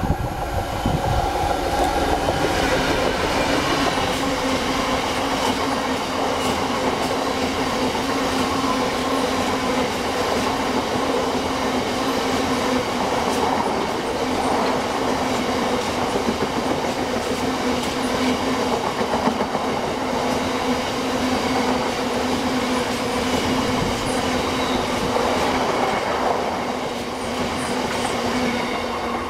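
A Class 66 diesel freight locomotive passes close by in the first couple of seconds, followed by a long train of loaded biomass hopper wagons rolling past steadily. The wagons make a continuous loud rolling noise with a constant hum.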